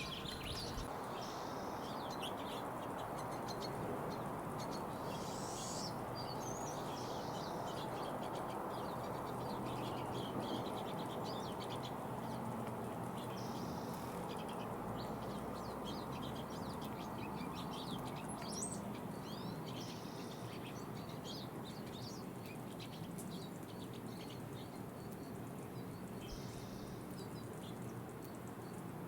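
Small songbirds chirping and calling on and off, with a few short buzzy trills, over a steady rushing background noise.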